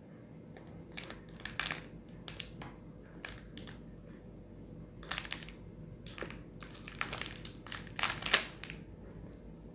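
Packaging being handled and crinkling in short rustling bursts, with a busier stretch of crinkles about seven to eight and a half seconds in.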